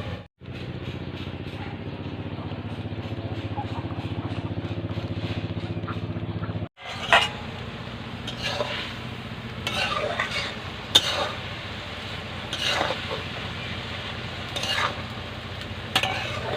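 A spatula stirring and scraping in a cooking pot of cabbage and potato curry, in short strokes every one to two seconds through the second half, over a steady low hum like a running engine. The sound cuts out briefly twice, and the first part holds only the hum with a fast pulse.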